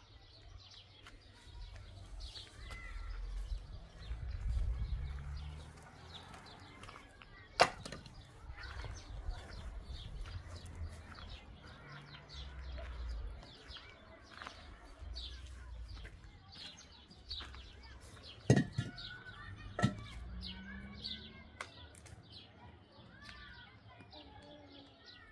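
Small birds chirping faintly throughout, with three sharp knocks: one about a third of the way in and two close together past the middle.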